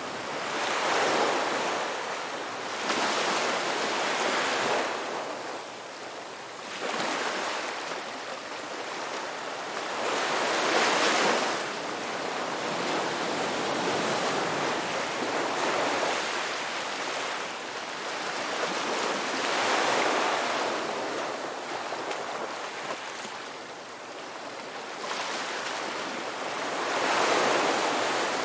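Sea waves breaking and washing in, a surge of surf every three to five seconds that swells and fades away.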